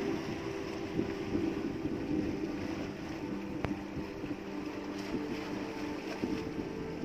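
A small outrigger boat's engine running steadily, with wind on the microphone and one sharp click about three and a half seconds in.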